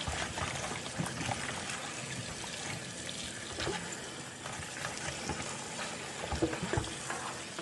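Kitchen tap running, water trickling steadily over frozen shrimp as they are rinsed, with a few small clicks of handling.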